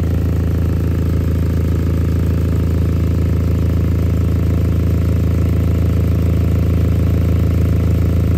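A 2010 Honda Insight hybrid's four-cylinder engine idling steadily, heard from underneath the car close to the exhaust. The exhaust is leaking around the middle section near the muffler, which is the cause of the car's loud noise.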